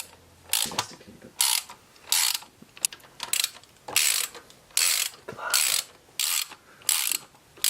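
Hand ratchet wrench tightening bolts in a steady series of strokes, about ten short ratcheting bursts a little more than one a second, as the bolts are brought down evenly to the same height on the camshaft bearing caps.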